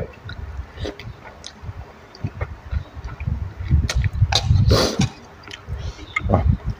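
Close-up, wet chewing and mouth sounds of a person eating rice noodles in a thick curry, with small irregular smacks and clicks. Near the middle comes one short, louder breathy rush of air.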